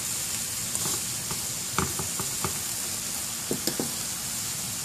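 Beef cubes and garlic cloves searing in hot olive oil: a steady sizzle with scattered sharp pops of spattering fat.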